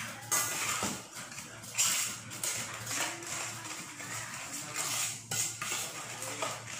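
A marinade being mixed by hand in a stainless steel bowl, with irregular scraping and light metallic clatter against the bowl.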